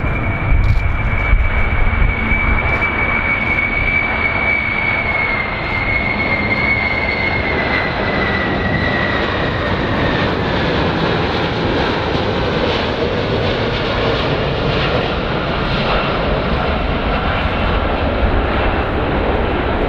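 Four General Electric CF6 turbofan engines of a Boeing VC-25A (747-200) on landing approach: a steady jet engine noise with a low rumble and a high whine that drops in pitch partway through as the aircraft passes.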